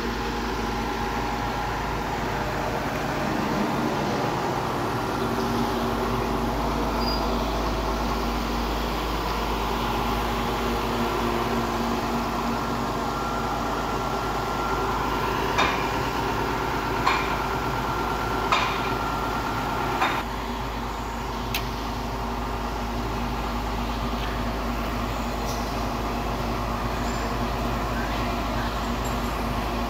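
Large excavator's diesel engine running steadily, with four sharp metallic knocks about a second and a half apart around the middle.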